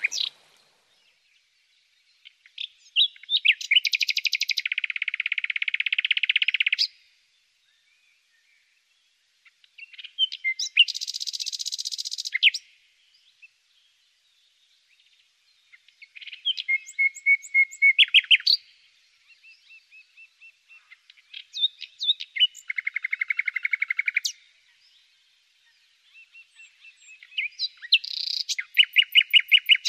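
A songbird singing in phrases of fast trills and rapidly repeated notes, each a few seconds long, with pauses of about two to three seconds between them.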